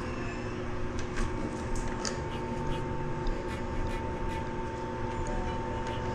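A steady mechanical hum with several steady tones. A higher tone comes in about a second in, and a few light clicks and knocks sound over it.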